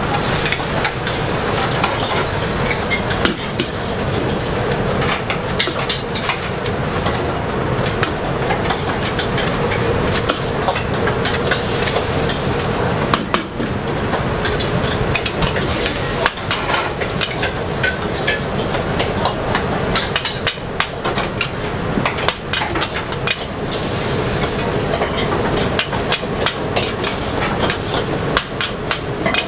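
A metal spatula repeatedly clanks and scrapes against a steel wok as noodles are stir-fried, with constant frying sizzle and a steady hum underneath.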